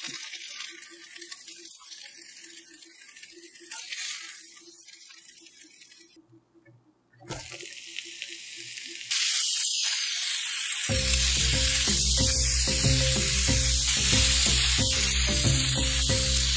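Food frying in an oiled heavy-bottomed pan: a faint sizzle at first, then about nine seconds in a loud, steady sizzle of sliced bell peppers and onions charring. About two seconds after that, background music with a steady beat comes in over the sizzle.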